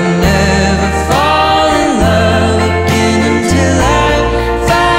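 Background music: a song with a sung melody of held, gliding notes over steady bass notes.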